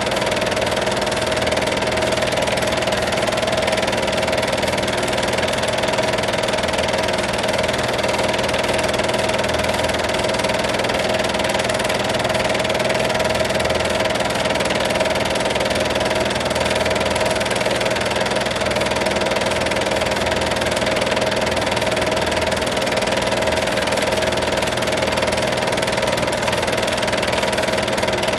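Film projector running: a steady mechanical whir with a constant tone, unchanging throughout.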